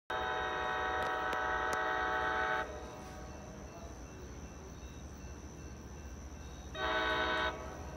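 Locomotive air horn sounding a chord: one long blast of about two and a half seconds, then a short blast near the end. A low, steady rumble runs underneath.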